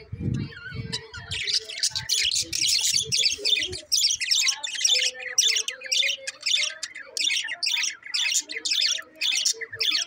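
Budgerigars chattering in a flock: rapid harsh squawks and chirps, several a second, thickest after the first couple of seconds. A few low thumps sound in the first second or so.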